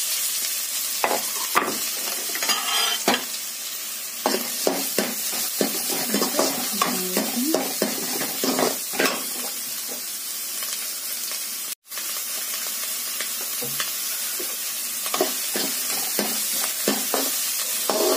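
Chopped onion sizzling as it fries in a little hot oil in a kadhai, stirred with a spoon that scrapes and clinks against the pan many times. The sound cuts out for an instant about two-thirds through.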